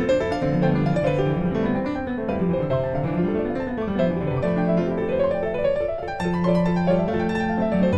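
Background music led by piano or keyboard, with melodic runs rising and falling.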